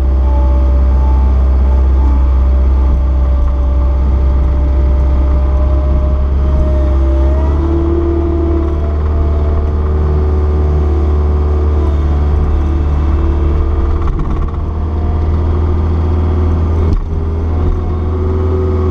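Caterpillar 236B skid steer's diesel engine running steadily under load with a deep hum and a whine that shifts in pitch partway through. There is one short knock near the end.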